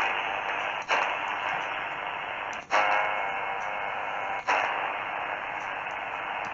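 Radio static from an Si473x multiband receiver in SSB (USB) mode: a dense hiss limited to the 3 kHz receive bandwidth, with a few faint steady tones around the middle. It cuts out briefly and comes back louder three times, as the receiver is retuned and mutes on each change.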